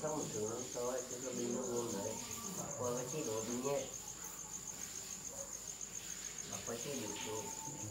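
An insect's steady high-pitched trill, a fast even pulsing. A man's voice talks low over it for the first few seconds and again briefly near the end.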